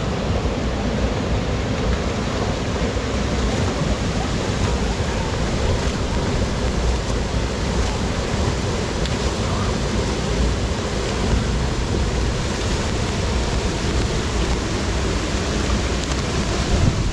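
Steady rush of water pouring over the falls of a creek, with a deep low rumble.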